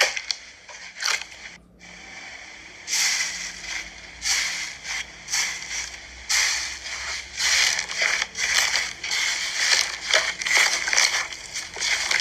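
Watery slime being squeezed and worked by hand, giving a run of wet crackling and popping bursts, each about half a second to a second long, starting about three seconds in.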